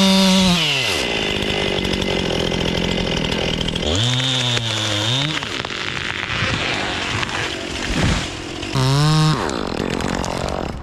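Gas chainsaw running and revving: its engine pitch drops away about a second in, climbs again at about four seconds, and spikes in a short rev near nine seconds.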